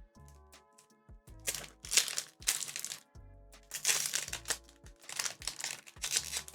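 Foil booster-pack wrapper crinkling in several loud bursts as it is handled and torn open, over background music.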